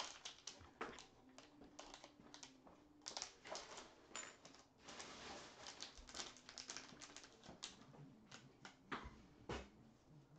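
Faint, irregular crinkling, crackling and clicks from a baseball card pack wrapper being handled and torn open, with a denser stretch of rustle mid-way, then cards being slid and shuffled in the hand near the end.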